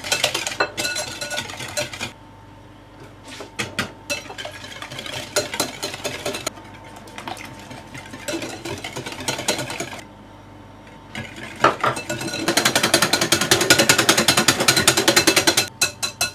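Wire balloon whisk beating eggs, sugar and cream in a glass bowl, the wires clicking rapidly against the glass in quick runs of strokes with short pauses. The fastest, loudest whisking comes near the end.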